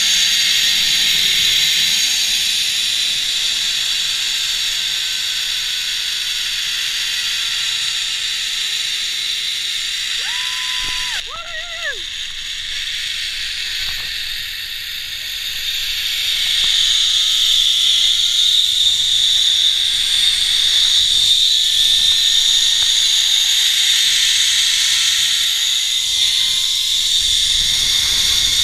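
Zip-line trolley pulleys running along a steel cable: a steady high whirring hiss with faint whines sliding in pitch. It gets louder about two-thirds of the way through, and a short warbling tone sounds about a third of the way in.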